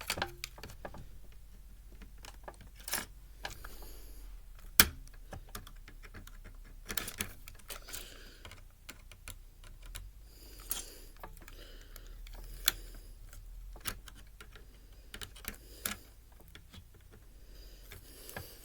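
Irregular clicks, taps and light clatter of screwdrivers and plastic and metal parts being handled while a Blu-ray player is taken apart, with one sharper knock about five seconds in.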